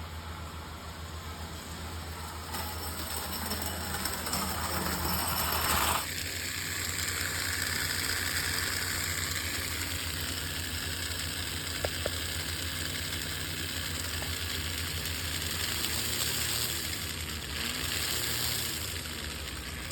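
O-gauge electric model train running, with a steady engine-like hum and rattle.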